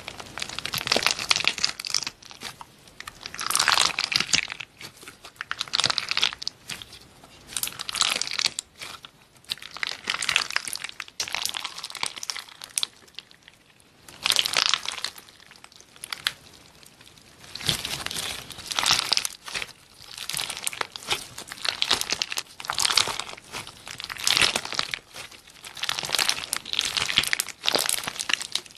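Clear slime packed with cookie-shaped charms being squeezed, pressed and stretched by hand. It gives crackling, crinkling pops in repeated bursts every second or two.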